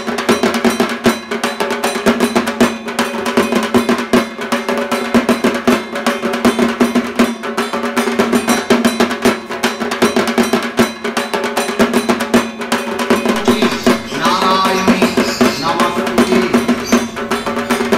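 Fast, continuous drumming over a steady droning tone.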